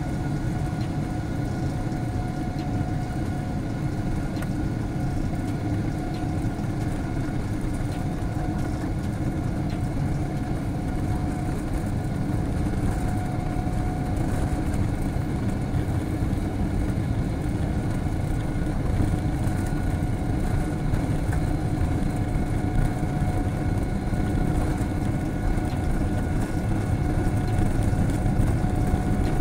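Boeing 777-300ER's GE90 jet engines heard from inside the cabin as the aircraft rolls on the runway: a steady low rumble with a high, even whine, growing slightly louder toward the end.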